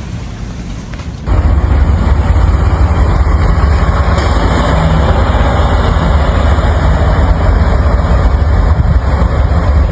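Heavy vehicle engine running steadily, loud and low-pitched, starting abruptly about a second in.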